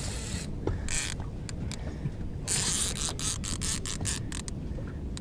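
Fishing reel working against a hooked striped bass, clicking mechanically, with a run of rapid, irregular clicks about halfway through, over a low steady rumble.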